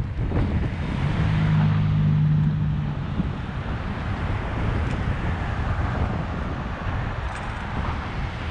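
Wind buffeting the microphone of a bicycle-mounted camera at speed, mixed with car traffic noise from the road. A low steady hum stands out from about one to three seconds in.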